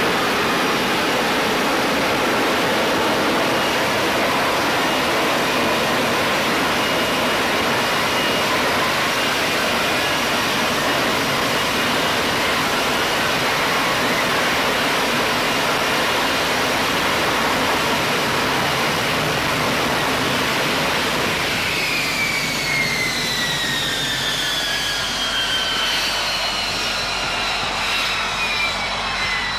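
F-35B Lightning II's F135 jet engine and lift fan running loud and steady as it hovers and descends for a vertical landing. Near the end, once it is on the deck, the engine winds down with a whine that falls in pitch.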